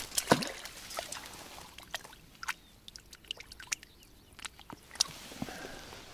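Water sloshing and dripping with a scatter of short splashes and clicks, the loudest about a third of a second in: a caught roach being put into a keepnet in the river.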